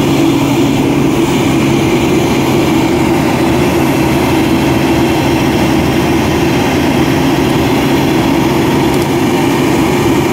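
Hino 500 tronton truck's diesel engine running steadily and loud under heavy load, as the loaded truck struggles to make a steep climb.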